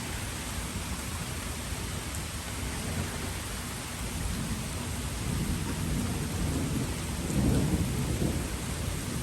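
Steady rain falling, with a low roll of thunder that builds about halfway through, peaks near the end and then eases off.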